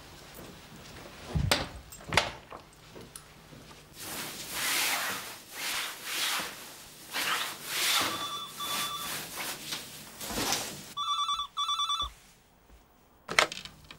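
A push-button telephone ringing with the British double ring: a warbling electronic trill, heard faintly around eight seconds in and then loud near the end. Before it, two thumps about a second and a half and two seconds in, then a stretch of swishing noise.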